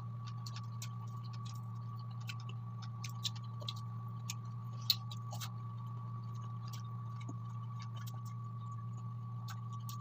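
Close-up mukbang eating sounds: scattered small clicks and crunches of chewing fried chicken wings, one sharper click about five seconds in, over a steady low hum with a faint high tone.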